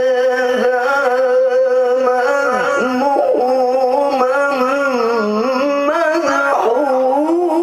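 A male Quran reciter holding one long wordless melismatic note in tilawah style. It is held steady at first, then winds through quick up-and-down ornamental turns from about the middle on.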